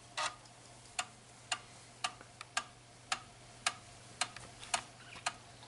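Floppy drive attached to an Amiga 500 clicking steadily, about two sharp clicks a second with fainter ticks between some of them, over a low steady hum.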